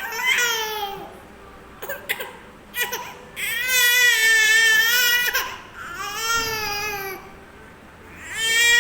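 A baby crying in four long wails, the loudest and longest about halfway through, with a few short clicks between the first two cries.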